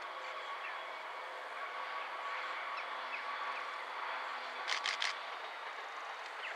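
Distant Arriva CrossCountry Class 170 Turbostar diesel multiple unit approaching, a steady hum of its engines and wheels on the rails over outdoor background noise. A few short high chirps come and go, and three sharp clicks follow close together a little past halfway.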